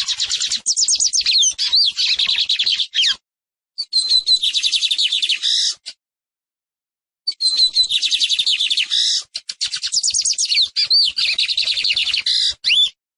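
Lined seedeater (Sporophila lineola) singing: fast, high, buzzy trills mixed with clear whistled notes, in three phrases broken by short pauses, the longest about a second and a half near the middle.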